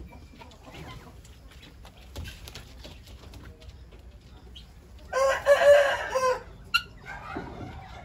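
A rooster crows once, loud and lasting about a second, starting about five seconds in. Before and after it, chickens make soft clucks and short calls.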